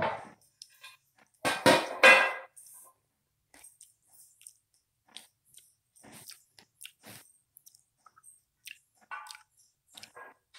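Handling noise from the phone camera as it is picked up and moved. Loud knocks and rubbing come at the start and again about one and a half to two seconds in. After that there are faint scattered clicks and rustles.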